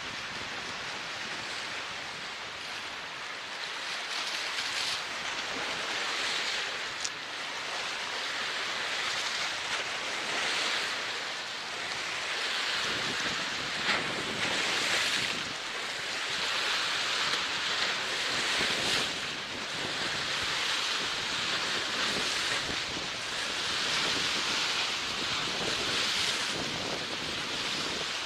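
Sea water rushing and waves washing, swelling and fading every second or two, from a high-speed catamaran ferry's wake and spray, with wind buffeting the microphone. No engine note comes through.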